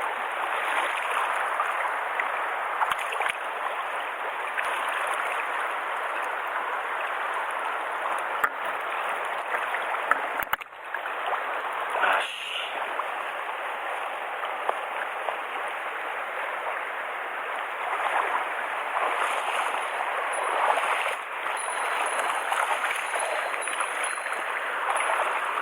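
Mountain stream water rushing steadily, with one sharp click about ten seconds in.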